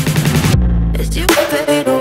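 Electronic dance music: a heavy bass holds while the high end drops out for a moment about half a second in, then comes back with a rising sweep.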